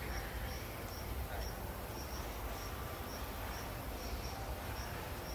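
An insect chirping in the forest: a short, high chirp repeated about two to three times a second, over a steady low rumble.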